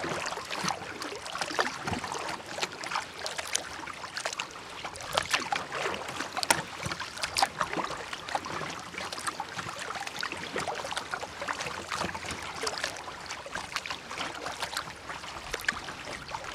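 Kayak paddling: the paddle blades dipping and splashing with water dripping off them, and small irregular clicks and knocks.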